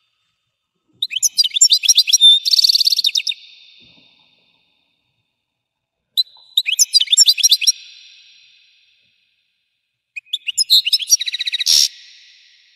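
European goldfinch singing: three bursts of rapid twittering notes and trills, each dying away in an echo-like tail.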